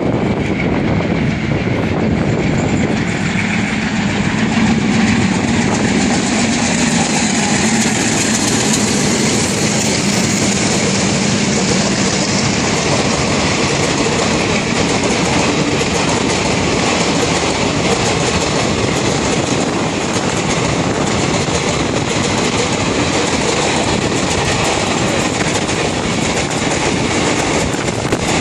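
Two WDM-3D diesel-electric locomotives accelerating an express passenger train through a station, their engines drawing a low drone that is strongest in the first ten seconds or so. A long rake of coaches then rolls steadily past with a clickety-clack of wheels over the rail joints.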